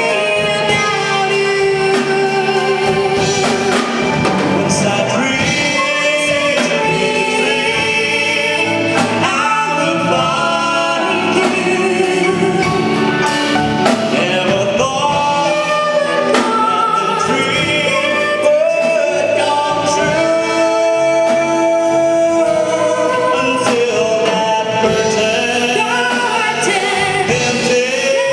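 Live band music with singing voices carrying the melody over instrumental backing, continuous throughout.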